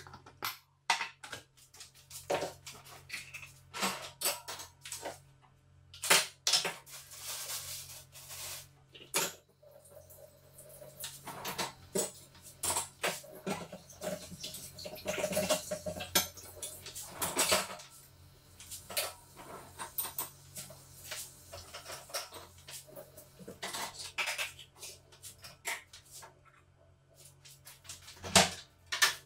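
Dishes and cutlery being cleared and put away: irregular clinks and clatters of crockery and utensils, with short pauses between them.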